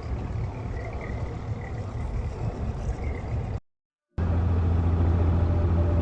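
Abra water taxi's diesel engine running steadily under way, a low droning hum. A little past halfway the sound cuts out completely for about half a second, then comes back louder and steadier.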